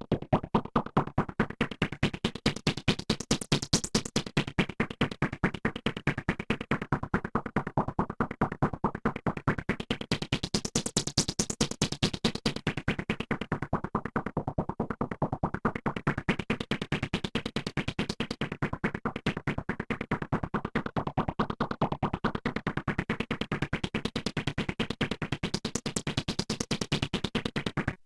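Electronic synthesizer sound effect: a fast, even train of pulses whose tone brightens and dulls in slow sweeps, stopping abruptly at the end.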